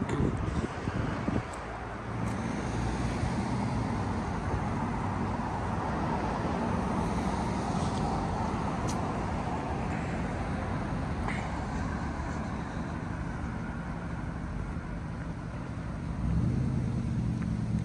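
City street traffic: cars and other vehicles running past in a steady stream, with a low engine rumble that grows louder near the end as a vehicle passes close.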